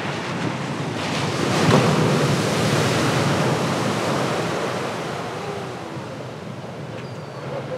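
Ocean waves breaking at a reef break: a steady rush of surf and whitewater that swells about a second and a half in, then slowly fades.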